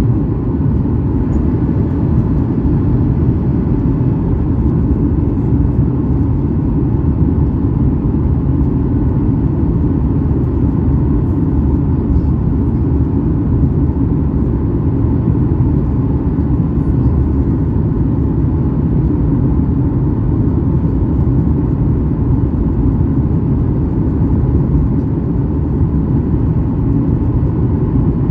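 Steady cabin noise inside a Boeing 737-8200 airliner descending on approach: an even, deep rush of airflow and engine sound heard through the fuselage, unchanging throughout, with a faint steady tone above it.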